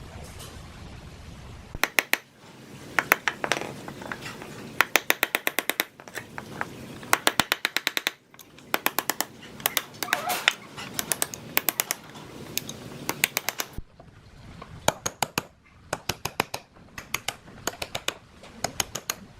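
Quick runs of sharp taps or clicks, about ten a second, in bursts of a second or so with short pauses between. This is hand-tool work on the old ceiling fan's parts.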